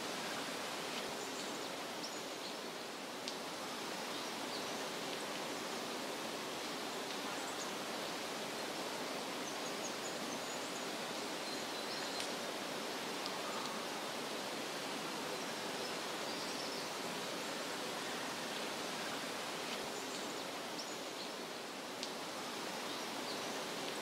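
Steady outdoor nature ambience: an even rushing hiss, with a few faint, short high chirps and ticks scattered through it.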